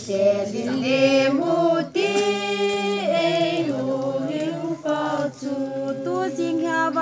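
A group of voices singing a Kuki folk song together, in long held notes that step from one pitch to the next.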